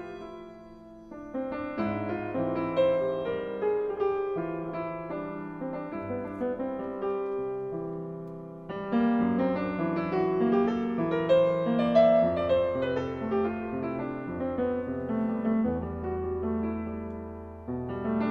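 Grand piano playing solo, chords under a melody line. It comes in about a second in, and a new, louder phrase starts about halfway through.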